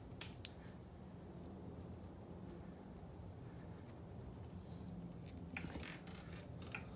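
Faint steady high-pitched insect buzz, crickets by its sound, over a low hum. A few faint clicks and rustles come near the start and again around five and a half to six seconds in, as wire connectors and the camera are handled.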